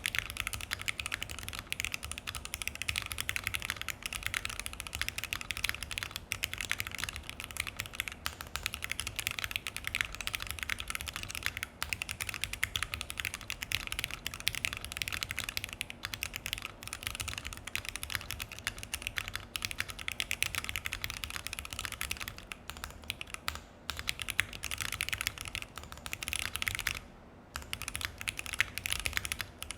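Continuous typing on a Keychron Q1 aluminium mechanical keyboard fitted with Akko Jelly Black linear switches on a tape-modded FR4 plate, with PBT keycaps: a dense, clacky run of keystrokes with a brief pause near the end.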